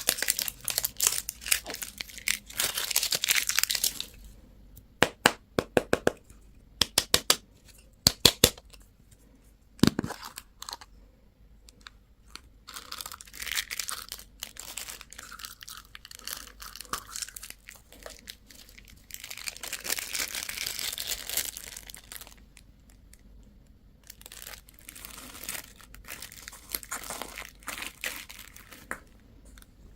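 Candy and toy packaging being torn open and crinkled. A run of sharp clicks comes about five to eight seconds in, and a single knock a little later.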